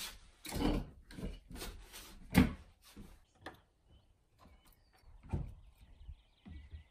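Footsteps and doors knocking as they open and close, with one louder thump about two and a half seconds in and fainter thuds later.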